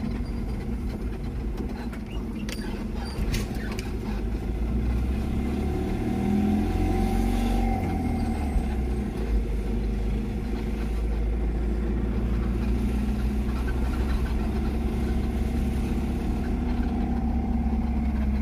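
Two-cylinder van's engine running and tyre noise heard from inside the cabin while driving on a paved road, with a few faint clicks about three seconds in.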